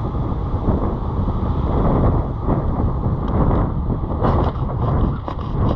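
Wind rushing over the microphone and steady road rumble from a boat trailer under tow behind a pickup truck, with a few light rattles.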